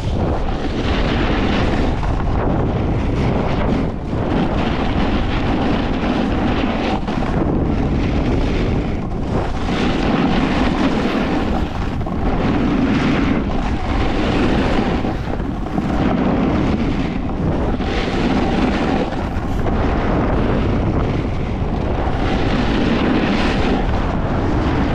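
A snowboard sliding fast over a groomed piste, with wind rushing over the microphone. The scrape of the board on the snow swells and fades every two or three seconds.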